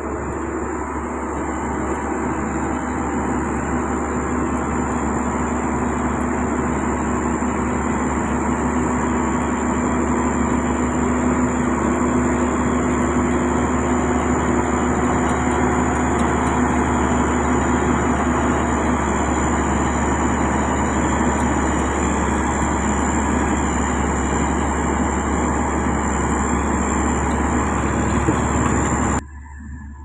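Heavy diesel road-building machinery, a motor grader and a single-drum road roller, running steadily at work. The sound cuts off abruptly about a second before the end.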